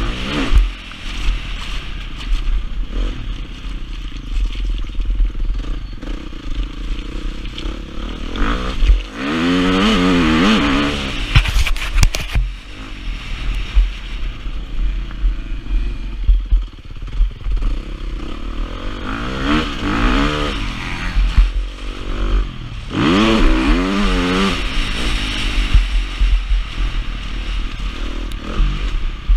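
Motocross bike engine under hard riding, the revs climbing steeply and dropping back again and again as the throttle is opened and shifts are made; the biggest surges come about a third of the way in and twice more in the later part. A steady low rumble of wind buffets the microphone, with some clatter from the bike over the rough track.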